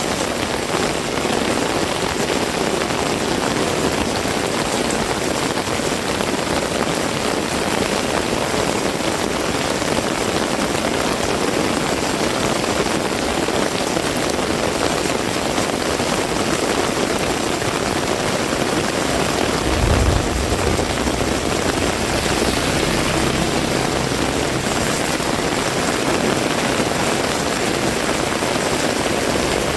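Heavy rain falling steadily, a dense even hiss, with a brief low rumble about two-thirds of the way through.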